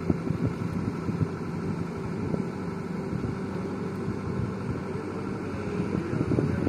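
Hitachi excavator's diesel engine running steadily, with wind buffeting the microphone.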